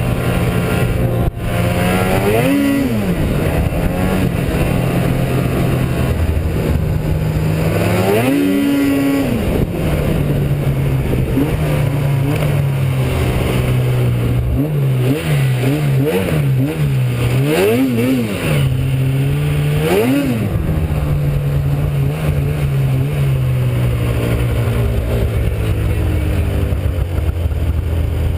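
Snowmobile two-stroke engine running under way at a steady pitch, with short throttle blips. The revs rise and drop back about two and a half seconds in and again around eight seconds, then come in several quick bursts between about fifteen and twenty seconds.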